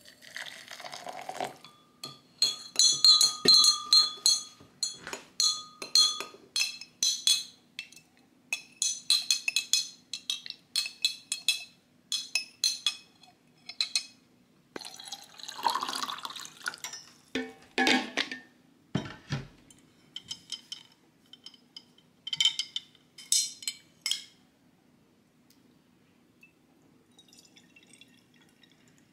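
Warm water poured into a glass beaker, then a metal spoon clinking fast and repeatedly against the glass as it stirs salt in to make saline. There is a second short pour midway, and more clinking later.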